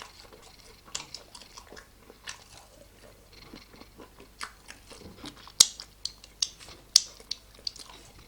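Close-miked chewing and biting into chicken wings: wet, irregular mouth clicks and crunches, with the two sharpest crunches a little past the middle and about a second and a half later.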